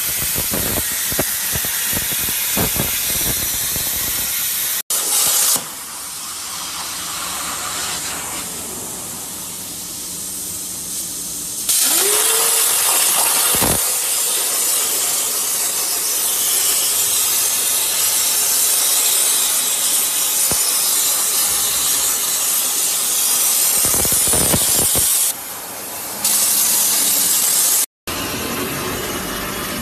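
CNC plasma cutting torch arc hissing loudly as it cuts steel plate. The hiss changes level abruptly a few times.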